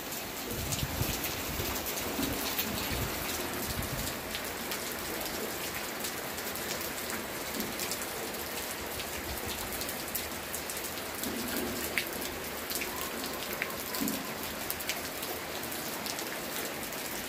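Steady rain falling on a flat concrete roof: an even hiss dotted with sharp ticks of drops landing, with a low rumble in the first few seconds.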